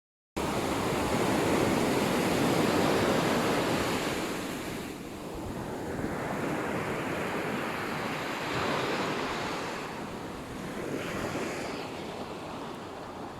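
Sea surf washing onto the shore, the rush of the waves swelling and ebbing in several surges, with wind on the microphone.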